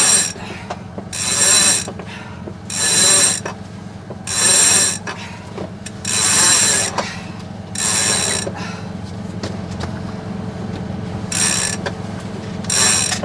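Sailboat cabin-top winch ratcheting in short, loud bursts, about eight in all, as the main halyard is hauled in by hand pull after pull, with a pause of a few seconds near the end. A steady low hum of the boat's inboard engine runs underneath.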